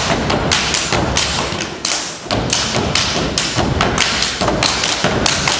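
A step team stepping in unison, rhythmic stomps on the stage floor and claps, about five sharp hits a second, with a brief lull about two seconds in.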